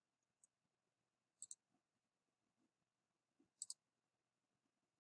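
Computer mouse button clicks: a faint single tick, then two sharp clicks about two seconds apart, each heard as a quick double tick of press and release.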